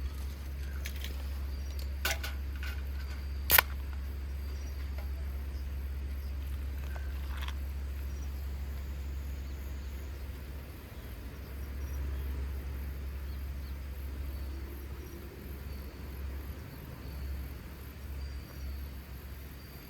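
Campfire with a few sharp crackling pops, the loudest about three and a half seconds in, over a steady low rumble, with faint insect chirping.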